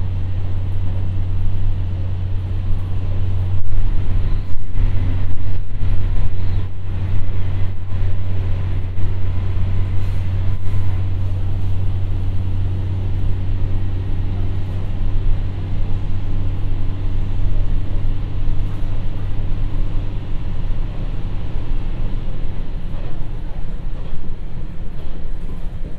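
Ibara Railway IRT355 diesel railcar running, heard inside the passenger cabin: a steady low engine drone with the rumble of the wheels on the track, and a few sharper knocks between about 4 and 11 seconds in.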